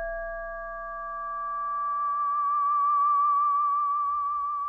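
Instrumental music of sustained, wavering electronic tones with a slow vibrato, like a theremin, with several held notes overlapping. The upper tone swells about halfway through and a lower note fades away near the end.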